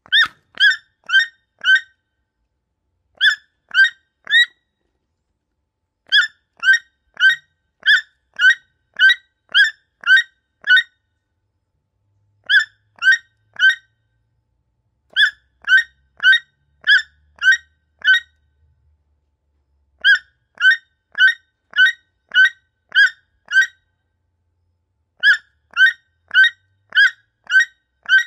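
A toucan calling: short, evenly spaced croaking notes, about two a second, repeated in bouts of three to nine with brief silences between them.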